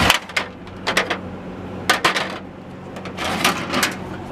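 Plastic clicks and knocks from hands working at a Galaxy box fan's control knob to pull it off, a few short sharp handling sounds scattered through the moment with a cluster near the end.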